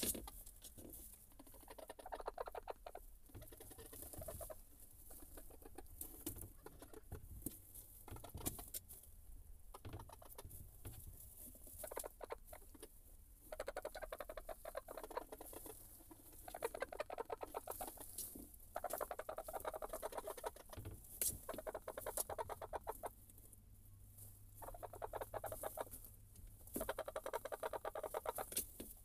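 Olandsk dwarf chickens clucking in repeated calls of a second or two, over a steady scatter of small clicks and taps from pecking and scratching in wood shavings.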